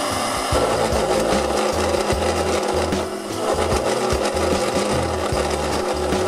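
A tool rasping or scraping against wood, a dense gritty noise, over background music with a bass line.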